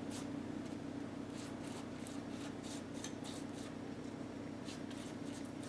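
Soft, light scratching and rustling from handling at the kitchen counter, a few faint strokes spread through, over a steady low electrical hum.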